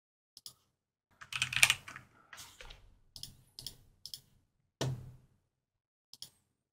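Computer keyboard typing and clicks: scattered keystrokes in a few short runs, with a louder click about five seconds in.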